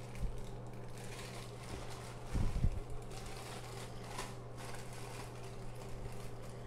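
Plastic zip-top bag crinkling in the hands as small glass pipes soaking in rubbing alcohol and salt are shaken inside it, with a few low thumps about two and a half seconds in, over a steady low hum.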